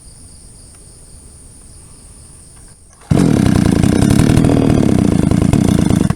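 Two-stroke engine of a JCK chainsaw with a 22-inch bar, run on test. It comes in suddenly about three seconds in, runs loud and steady for about three seconds, then cuts off.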